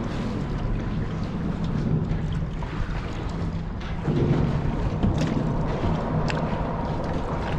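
Wind buffeting the microphone and water slapping around a small fishing boat, over a steady low hum, with scattered small ticks. It gets a little louder about four seconds in.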